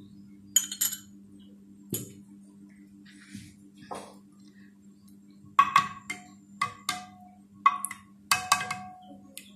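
A spoon tapping and clinking against glass bowls as black pepper is added to yogurt and stirred in. A few single taps come in the first four seconds, then a quicker run of short ringing clinks from about five and a half seconds in, all over a steady low hum.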